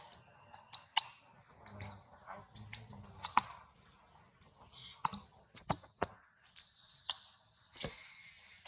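Baby macaque eating ripe fruit: irregular wet clicks and smacks of biting and chewing. A faint steady high hum comes in past the middle.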